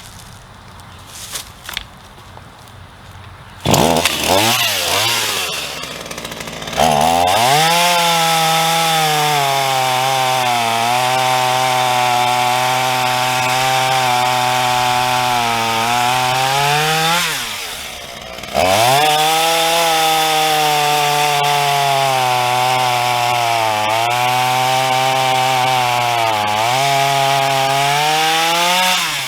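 Black Max 16-inch 38cc two-stroke chainsaw revved up about four seconds in and held at full throttle, its pitch sagging in places as the chain bites into the wood. A little past halfway it drops back briefly, then revs up again for another long cut.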